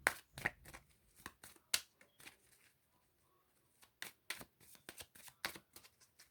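Tarot cards being shuffled by hand: a run of quick, sharp card clicks and slides, with a quieter pause of about a second a little past halfway.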